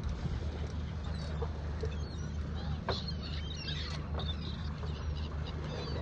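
Seabirds calling overhead: several short, squiggly high calls clustered in the middle. Beneath them runs a steady low rumble.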